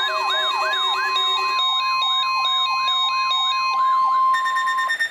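NOAA Weather Radio warning alarm, a steady tone near 1 kHz, sounding together with a weather radio receiver's electronic alert siren: repeating upward sweeps about three a second over beeping tones. It signals the required weekly test. The beeps change pattern near the end, the steady tone stops, and then everything cuts off.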